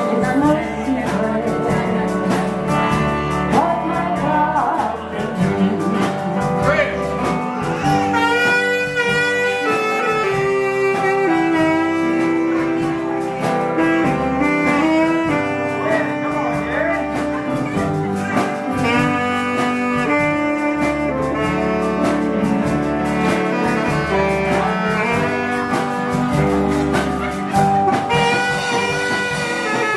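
Live country band music with a lead instrument playing held, wavering melody notes over a steady accompaniment.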